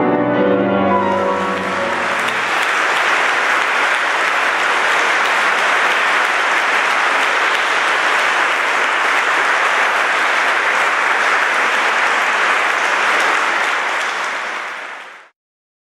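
Audience applause from a large seated crowd, breaking in about a second in over the last held chord of the music, which dies away by about two seconds; the clapping runs on steadily, then fades out near the end.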